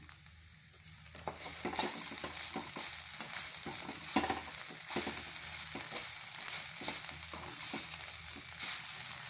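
A slotted steel spatula scrapes and stirs a soya-chunk and vegetable momo filling in a hot kadhai, over a steady frying sizzle. The stirring starts about a second in and carries on as quick, repeated scrapes against the pan.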